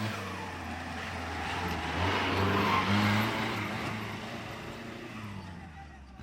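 An off-road 4x4's engine running and being revved, its pitch stepping up and down, with a rushing noise that swells about two to three seconds in and fades toward the end.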